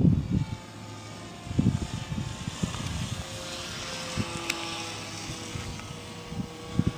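Brushless electric motor and propeller of a foam RC Cessna 182 whining in flight, its pitch drifting slowly up and down as it flies around. Low thumps break in at the start and again near the end.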